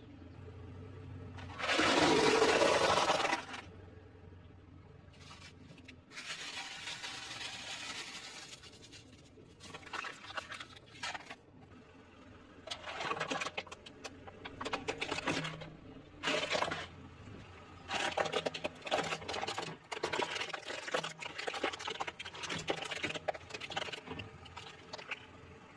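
A car tyre crushing things on asphalt. A loud rushing, hissing spray comes about two seconds in, from a crushed plastic soda bottle of blue slush, and is the loudest sound. Over the second half, dyed eggshells in a foil tray crack and crunch under the tyre in a run of short crackling bursts.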